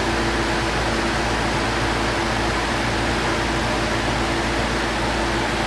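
Outdoor central AC condenser unit's fan motor running, a steady rush of air over a low hum. The compressor has not started yet: the soft start is still holding its start delay.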